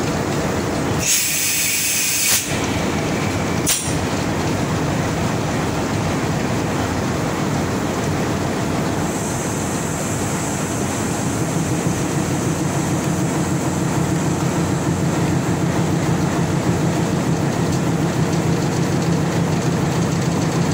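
Diesel locomotive running steadily while the coupling and brake hoses to the carriage are worked on, with a short hiss about a second in that lasts a little over a second. A low engine hum grows louder from about halfway.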